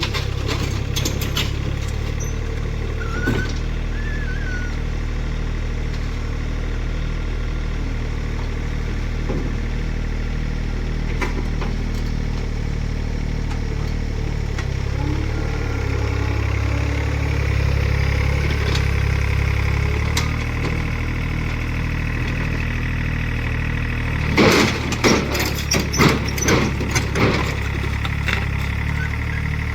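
Mini excavator engine running steadily, with a higher whine joining in partway through. Near the end there is a quick series of loud knocks.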